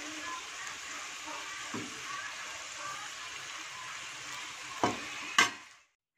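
Battered potato sticks deep-frying in hot oil in a pan, a steady sizzle, as a metal spatula turns them. Two sharp knocks near the end, then the sizzle cuts off abruptly.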